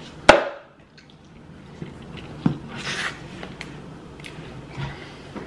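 A paper drink cup set down on the table with one sharp knock, followed by quieter wet chewing and mouth sounds of eating.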